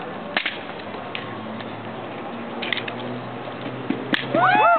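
Drill rifles being slapped and handled by a drill team: a few sharp, isolated slaps and clicks. Near the end a loud, drawn-out call with a rising and falling pitch begins.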